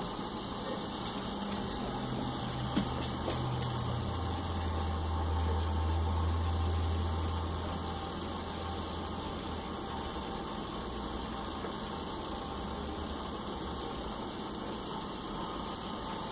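A low mechanical hum over steady background noise, swelling about two seconds in and easing off by about eight seconds.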